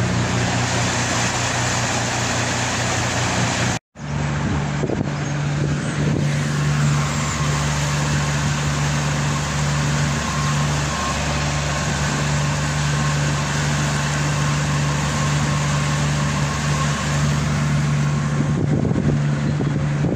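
Small boat's outboard motor running steadily at cruising speed, a steady low hum over the rush of water from the hull and wake. The sound cuts out for an instant about four seconds in, then the motor carries on at a slightly higher, even pitch.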